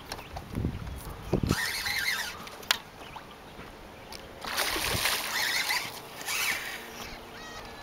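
Hooked muskie splashing and thrashing at the surface beside the boat, in two bursts: one about a second and a half in, and a longer one from about four and a half seconds.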